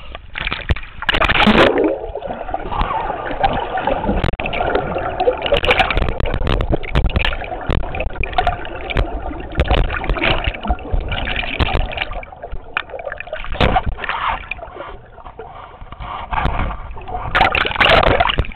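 River water splashing and gurgling around a camera held at the surface and dipping underwater, with louder splashes about a second in and near the end.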